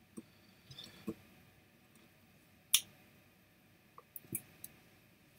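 A few faint, scattered clicks and light knocks, the sharpest one just under three seconds in and a small cluster of them a little after four seconds.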